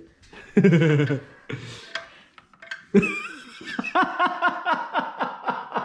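People laughing: a loud burst about half a second in, then a run of chuckling in the second half.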